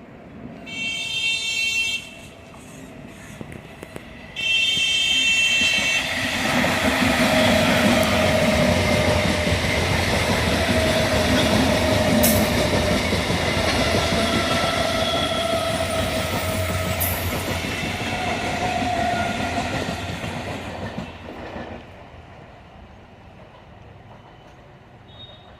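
A train sounds two horn blasts of about a second and a half each. It then passes close by for about fifteen seconds, with the rumble and clatter of its wheels on the rails and wavering wheel squeal, and fades away near the end.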